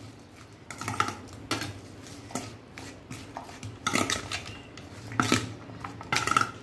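Metal spoon scraping and clinking against a stainless steel bowl while stirring chopped onion and tomato, in irregular strokes, some with a short metallic ring.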